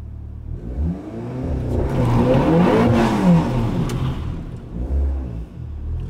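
Volkswagen Golf R's turbocharged four-cylinder engine revving, its pitch rising and falling several times and loudest about halfway through, heard from inside the cabin.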